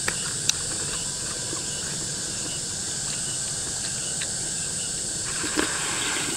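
Steady chirring of an insect chorus. There are a couple of small clicks about half a second in, and a slurp of hot soup from a ladle near the end.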